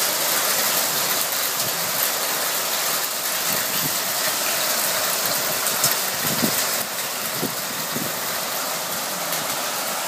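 A hailstorm: hailstones and rain pelting down in a steady dense patter, with scattered sharper ticks of individual stones striking. A handful of louder hits come about six to eight seconds in.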